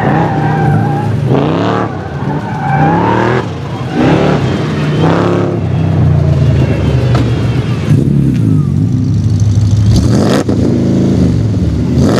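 Chevrolet C4 Corvette V8 exhaust, revving hard with the pitch climbing and dropping again and again as the engine is run up through the gears and let off.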